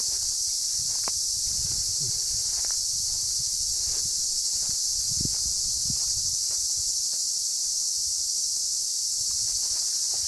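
A dense, steady chorus of summer insects shrilling high and continuous. Beneath it are soft, irregular footsteps and rustling through dry grass.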